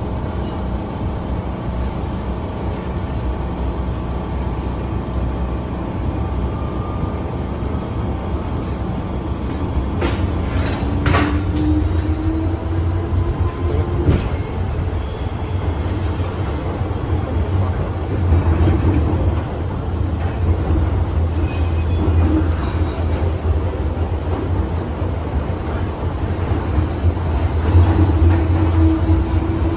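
Inside a running MTR M-train car: steady rumble of wheels on rail with a motor hum, heavier from about halfway through. A cluster of clicks comes about ten seconds in, and a rising whine follows it and comes again near the end.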